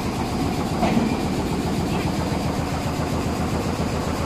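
Frame saw machine running with a steady low mechanical drone, with a light knock about a second in.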